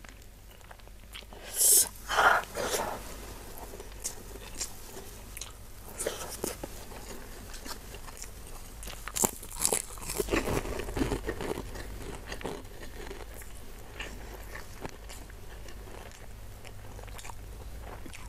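Close-up eating sounds of a person eating spicy beef and rice by hand: wet chewing and small mouth clicks throughout, with louder bites about 2 seconds in and again about 10 seconds in.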